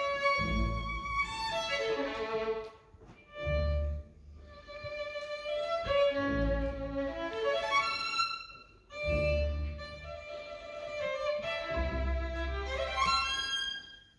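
Symphony orchestra playing, violins to the fore. The music moves in phrases with a heavy low accent about every three seconds, and short breaks between some phrases.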